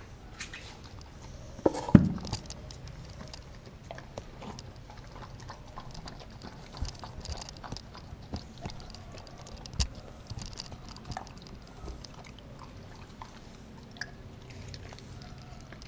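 Mixed-breed dog chewing raw food, a frozen turkey steak, beef heart and carrots, from a stainless steel bowl, with irregular crunches and clicks. A loud thump comes about two seconds in.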